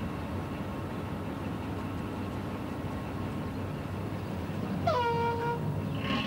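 Steady street background noise with one short horn toot about five seconds in; the toot rises briefly in pitch, then holds a single note for under a second.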